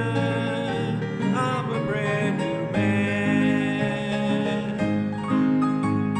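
Music of a gospel song, carried by the instruments with no clear words.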